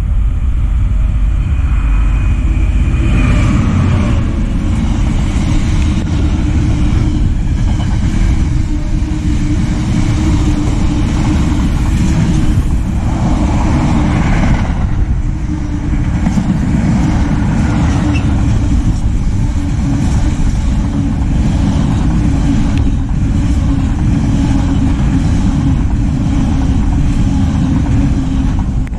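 Container freight train passing close by at speed, a loud, steady rumble of wheels on rail as the wagons go past.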